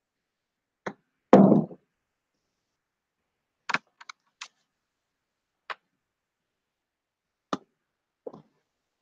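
Scattered clicks of computer keys, a few at a time with pauses between, and one louder, duller thump about a second and a half in.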